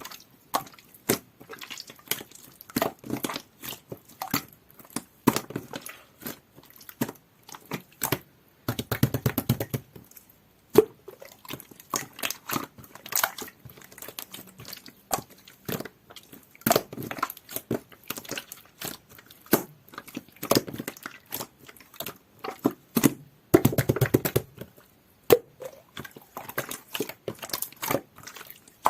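Hands stretching, folding and pressing purple slime, giving a dense run of small sticky clicks and pops. Twice, about nine and twenty-four seconds in, a longer low rasping squelch as the slime is squeezed.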